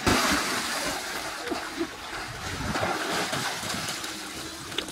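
Water splashing and churning in a small pool as two people swim through it.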